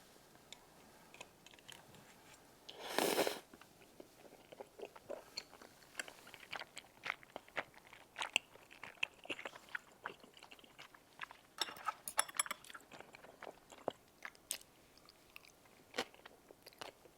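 Close-miked chewing of spicy tteokbokki rice cakes: many small wet clicks and smacks of eating, with one short, louder noise about three seconds in.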